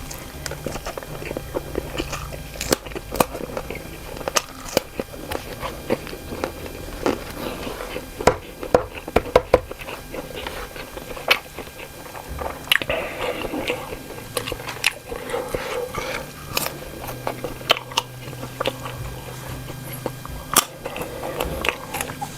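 Close-up eating sounds: a person biting and chewing cocktail sausages cooked with green chili, with frequent short wet clicks and crunches.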